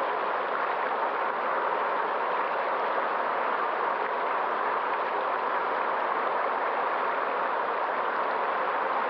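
River water flowing, an even steady noise.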